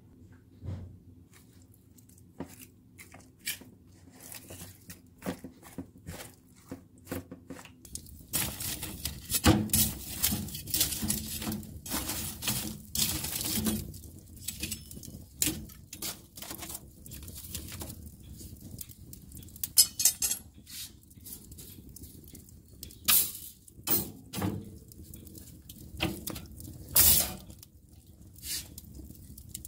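Wood fire crackling, with irregular sharp pops and snaps, louder from about eight seconds in; before that there are only a few faint clicks.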